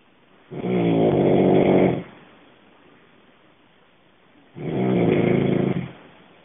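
A person snoring loudly in sleep: two long, pitched snores about four seconds apart, each lasting over a second.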